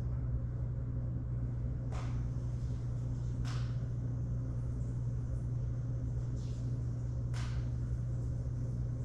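A steady low droning hum, with three brief faint noises about two, three and a half and seven and a half seconds in.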